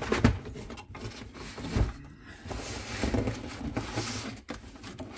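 A cardboard shipping box being handled: a plastic drawer unit scrapes and rustles against the cardboard as it is slid out by hand. Dull knocks come just after the start and again a little before two seconds in.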